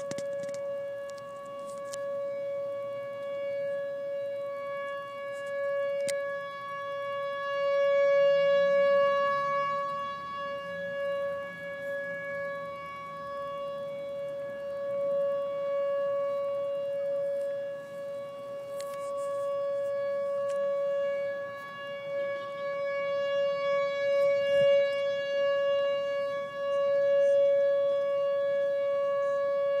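A strange, unexplained horn-like tone, held at one unchanging pitch with a stack of overtones, swelling and easing in loudness without a break.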